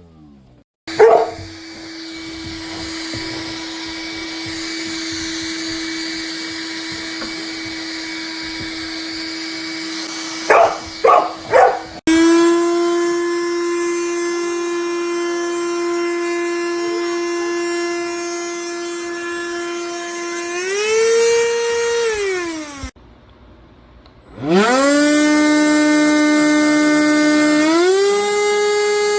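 Cordless handheld vacuum's motor whining steadily. It runs three times, stopping and starting in between, and in the later runs the pitch steps up for a moment. Three short loud sounds come about a third of the way in.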